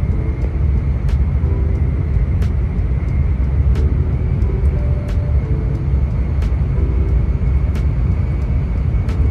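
Loud, steady low rumble inside the passenger car of a Kamome Shinkansen (N700S) running at speed through a tunnel, with faint clicks every second or so.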